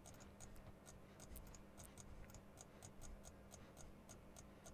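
Faint computer mouse clicks in quick succession, about four a second, selecting contours one after another, over a low steady hum.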